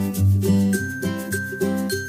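Background music: a rhythmic tune of short pitched notes over a strong bass, with thin high tones held above it.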